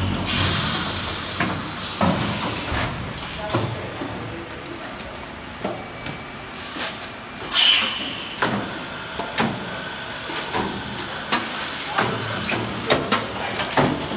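Rice vacuum packing machine running, its pneumatic cylinders and mechanism clacking irregularly. A loud hiss of released air comes about seven and a half seconds in.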